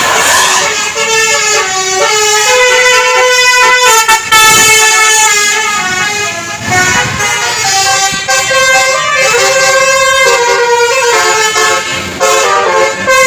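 Basuri 'telolet' bus horn playing a loud melody: several horn tones sound together and step from note to note, with brief breaks between phrases.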